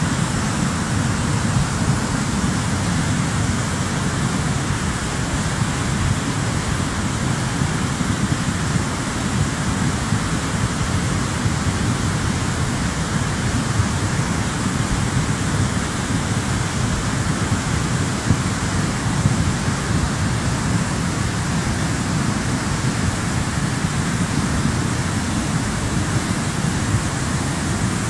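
Mountain river in flood: a steady rush of fast, muddy water with a strong, deep rumble underneath, unchanging throughout.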